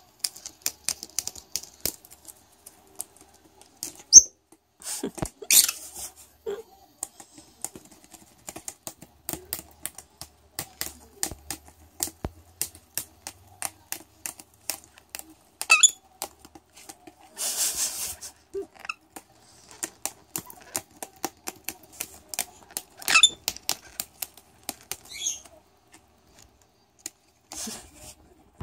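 A rosy-faced lovebird's beak snipping and biting paper: rapid, irregular crisp clicks as he cuts strips from a sheet, with a few louder rustles and tearing noises. This is papercutting, the strip-shredding lovebirds do for nest material.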